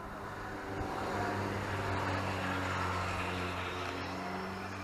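A passing lorry on the motorway: a steady low diesel engine drone with tyre and road noise that swells about a second in and fades away near the end.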